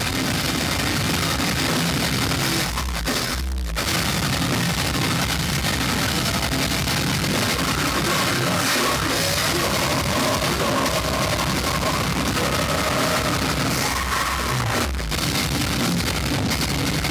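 Heavy rock band with distorted guitars playing loudly through a venue's PA system, recorded from within the crowd. The music drops out for a moment about three and a half seconds in.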